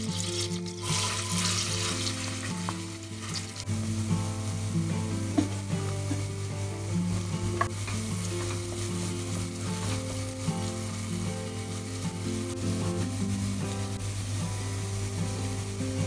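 Diced onion sizzling in melted butter in a stainless steel pot, stirred now and then with a wooden spoon. The sizzle picks up about a second in, as the onion goes into the hot butter.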